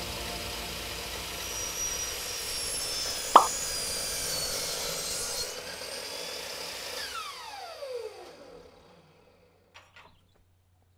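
12-inch miter saw with a Diablo non-ferrous blade spinning at speed after a cut through an aluminum extrusion, a steady high whine with one sharp clink about three and a half seconds in. Once the trigger is released, the motor and blade spin down with a falling whine and stop, followed by a couple of faint clicks as the cut piece is handled.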